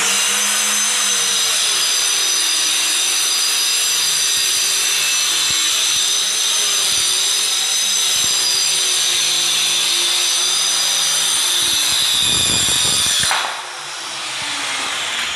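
Handheld electric saw cutting along a plywood sheet: a steady high-pitched motor whine with cutting noise, dropping off about 13 seconds in.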